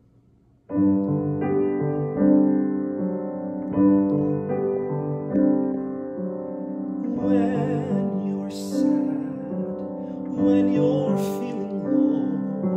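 Grand piano playing slow sustained chords, starting about a second in; a man's voice begins singing over it a little past halfway.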